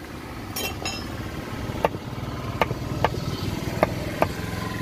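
Cleaver chopping goat head meat on a wooden log chopping block: about five sharp chops at uneven intervals, starting about two seconds in. A steady low engine hum runs underneath.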